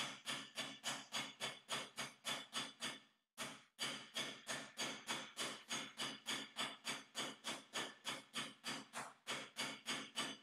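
Wooden meat mallet pounding a pork fillet wrapped in cling film on a chopping board, flattening it to an even thickness. A steady run of blows about three or four a second, with a brief pause about three seconds in.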